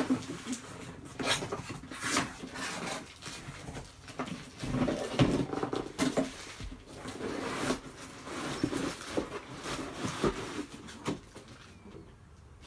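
Cardboard packaging being handled: the box flaps open and the plastic-wrapped cutter slides out, giving a run of irregular scrapes, rustles and light knocks.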